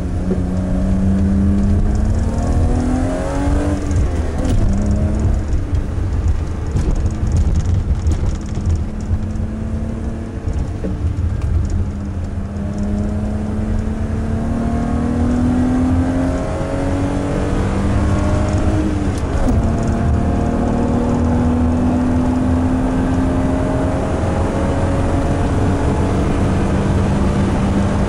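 1990 BMW 325i's inline-six engine pulling under acceleration through a 5-speed manual, revs climbing and dropping at upshifts about 4 and 19 seconds in, over constant low road and tyre rumble.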